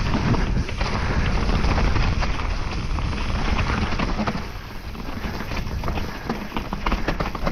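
Wind buffeting the microphone over the rumble of a Trek Remedy 7 27.5+ trail bike rolling over rough ground: tyres on dirt and stones, with frequent clicks and rattles from the bike.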